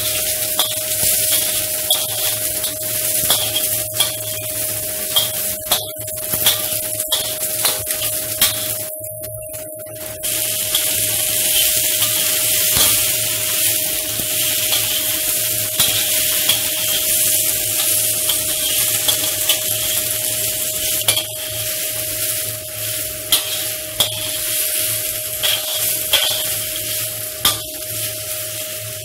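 Sliced cucumber and garlic sizzling in an oiled wok while a metal spatula stirs, with frequent sharp clicks of the spatula striking the wok. The sizzle drops out briefly about nine seconds in, and a steady hum runs underneath.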